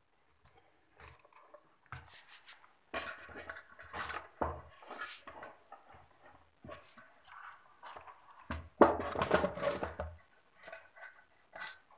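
Hands handling a homemade amplifier's case, wooden panels and cover: irregular knocks, scrapes and rattles, with the loudest cluster about nine seconds in.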